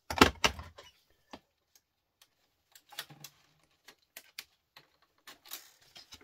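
Small scrap mains transformers clinking and clattering as they are handled and dropped on a workbench: a loud burst of clatter at the start, then scattered single clicks.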